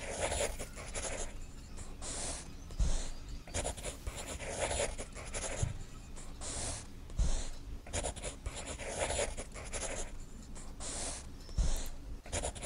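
Pencil scratching on paper as a hand sketches a line drawing, in short irregular strokes.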